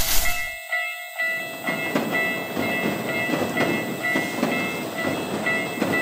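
Japanese level-crossing alarm ringing in a steady repeating pattern while a train runs past with rumbling, clattering wheels that come in about a second in.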